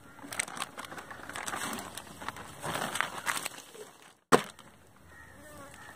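A wet clear plastic bag crinkling and rustling as it is handled and lifted with shucked oyster meat inside, with one sharp click a little after four seconds in.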